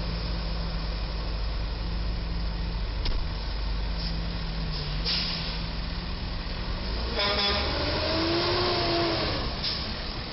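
Truck engines idling with a steady low hum. About seven seconds in there is a short rattle, then a wavering tone that bends up and back down for about two seconds.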